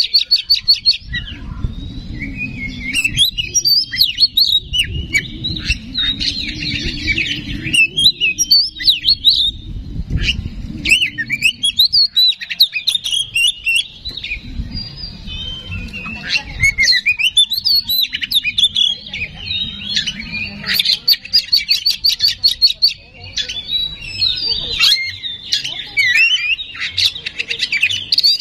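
Oriental magpie-robin (kacer) singing a loud, continuous song of varied whistles and chattering phrases, with fast runs of rapid ticks toward the end. A low rumble runs underneath through the first half.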